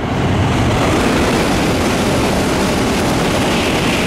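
Tokaido Shinkansen train passing on the bridge above at high speed: a loud, steady rush of noise that builds just before and holds at full strength.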